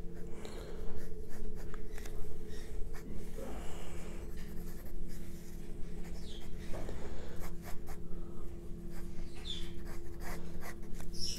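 Graphite pencil sketching on white drawing paper: irregular scratchy strokes and short rubbing passes, over a steady low hum.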